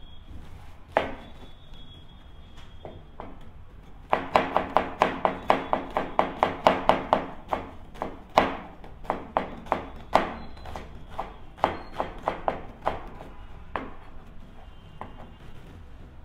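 Chef's knife chopping a red onion on a plastic cutting board: a few single knocks at first, then about four seconds in a fast, even run of about four to five strokes a second, slowing and thinning out toward the end.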